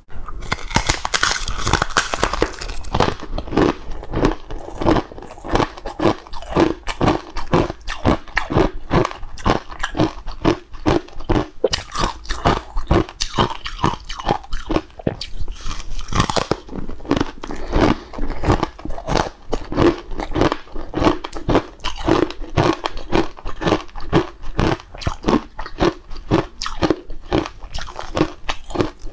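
Crisp crunching bites and chewing of a dry, crumbly green block, a couple of crunches a second, with the loudest crackly bites at the start and again about halfway.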